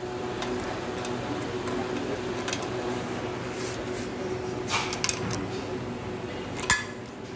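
Steady room hum with a few scattered metal clicks and knocks from handling the chrome-plated steel footrest frame of a wheelchair. The loudest clicks come about five seconds in and again near the end.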